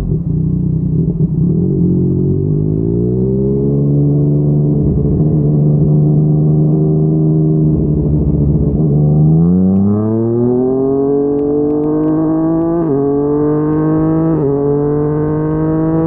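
Yamaha MT-09's three-cylinder engine through a Yoshimura R55 slip-on exhaust, heard from the rider's seat. It revs up briefly about three seconds in and holds steady, then accelerates hard from about nine seconds in, with two quick upshifts where the pitch dips for a moment near the end.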